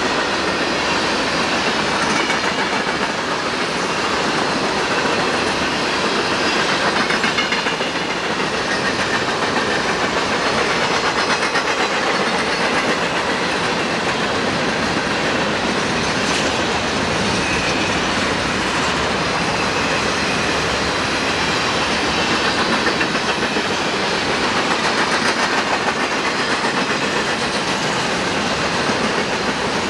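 Freight train cars rolling steadily past, their steel wheels clickety-clacking on the rails.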